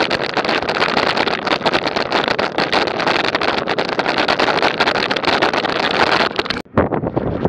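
Wind rushing and buffeting over an action camera's microphone while riding at speed, a dense, fluttering noise. It drops out for a split second near the end.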